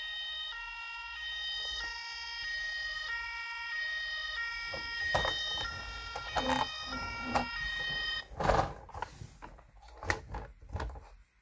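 Electronic two-tone siren of a Playmobil 70557 toy fire engine, stepping back and forth between two pitches and cutting off about eight seconds in. Clicks and knocks from the plastic toy being handled come through in the second half.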